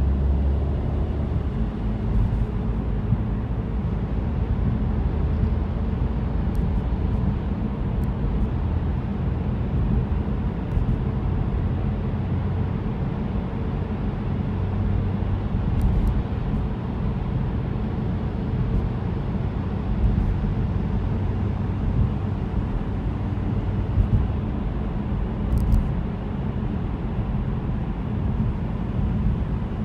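Steady low rumble of a car driving through a road tunnel, heard from inside the car: tyre and engine noise at a constant cruise.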